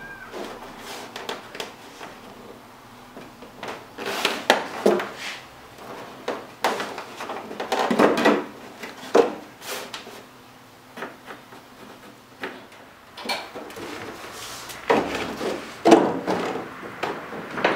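Thin cedar strips knocking and scraping against each other and the canoe hull as they are handled and fitted by hand: a series of irregular wooden knocks and rubs with short gaps between them.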